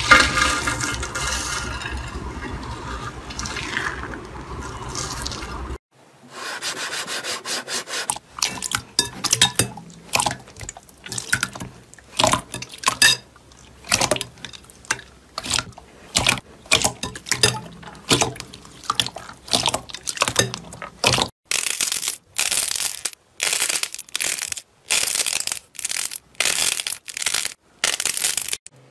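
Hands crushing a pile of brittle curled shavings, a dense continuous crackling crunch; after a sudden break about six seconds in, glossy slime being squeezed, poked and pressed, making a series of separate short wet pops and squelches that come louder and quicker in the last third.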